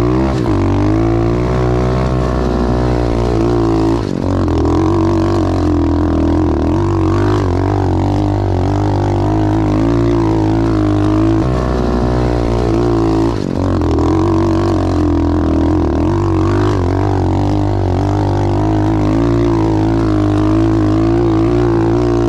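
SSR 125 pit bike's single-cylinder four-stroke engine revving hard under load as it climbs a steep rocky hill, the pitch rising and falling with the throttle. The sound dips briefly twice, about four and thirteen seconds in.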